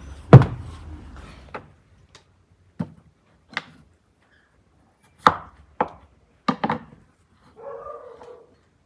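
Kitchen knife cutting peeled potatoes on a wooden cutting board: a series of sharp, irregularly spaced knocks as the blade goes through onto the board. A louder thump comes about a third of a second in, and a brief rustle near the end.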